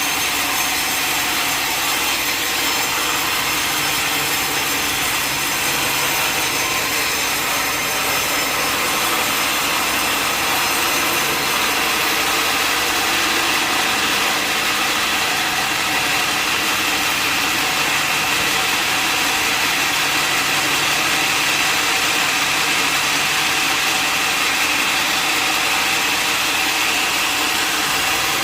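Sawmill saw cutting lengthwise through a large mahogany log, a steady loud rasping of the blade in the wood that runs without a break.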